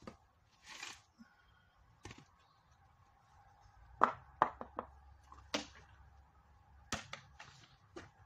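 Irregular knocks and clatter of a plastic garden pressure sprayer and container being handled and set down on gravel, the loudest a quick run of knocks about four seconds in and another near the end.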